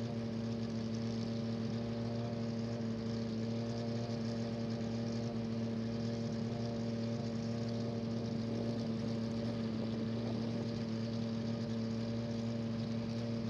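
An engine idling at a steady, unchanging pitch.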